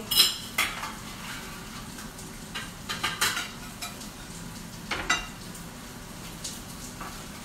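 Metal slotted spatula scraping and clinking against a baking tray and a plate as a fried pork schnitzel is lifted and served, with several sharp clinks, the loudest just after the start, around three seconds in and around five seconds in. Under them runs a steady faint frying sizzle.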